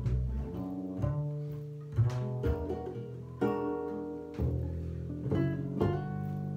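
Jazz duo of acoustic guitar and double bass played pizzicato, a slow tune with plucked guitar notes and chords over deep, sustained plucked bass notes.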